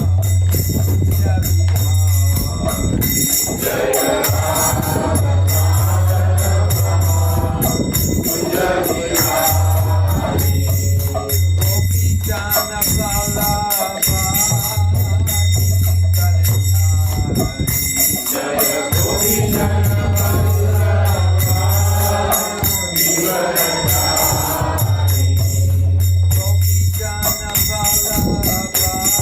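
Devotional group singing (kirtan) with a steady rhythm of small hand cymbals ringing throughout, and a recurring low sustained tone underneath.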